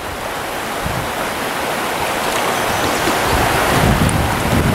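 Steady rush of a shallow rocky trout stream flowing around the wader, slowly growing louder, with a low rumble added in the last second or so.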